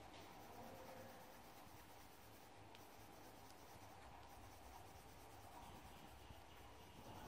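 Near silence: faint room tone with a low steady hiss.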